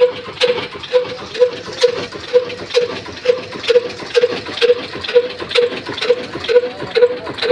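Old Ruston Hornsby single-cylinder diesel oil engine running at a slow, steady beat, about two firing knocks a second.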